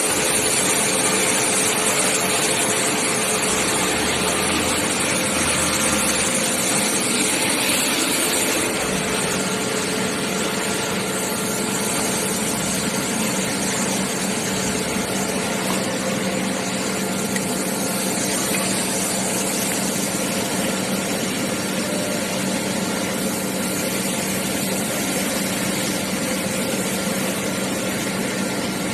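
A machine or engine running steadily with a constant hum, its higher hiss easing slightly about nine seconds in.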